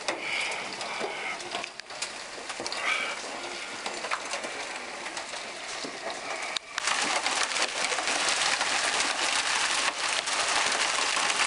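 Hail and heavy rain coming down on wet pavement and parked cars: a steady hiss thick with small clicks and splashes of hailstones. It jumps louder and denser about seven seconds in.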